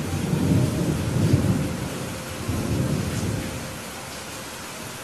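Thunder rumbling over steady rain hiss, with the heaviest rolls in the first second and a half, then fading out.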